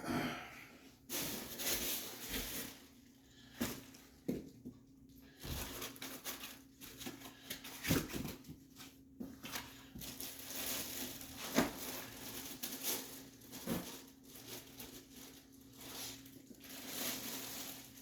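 Packaging being handled and unwrapped: irregular rustling with about half a dozen sharp knocks as statue pieces are taken out and set down. A faint steady hum runs underneath.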